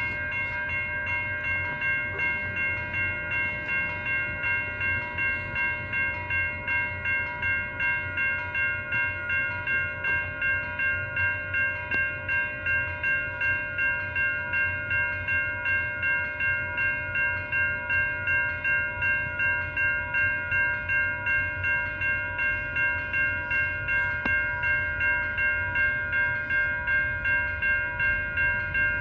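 Level crossing warning bell ringing steadily, about two strokes a second, over a low rumble.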